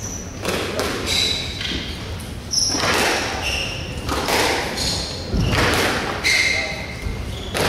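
Squash rally: the rubber ball knocked by rackets and smacking off the court walls, a sharp knock every second or so, mixed with short high squeaks from players' shoes on the wooden court floor.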